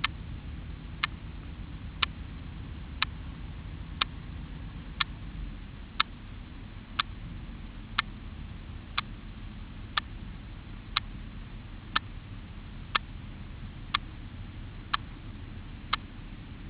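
Steady ticking, one sharp tick each second at an even pace, over a low steady rumble.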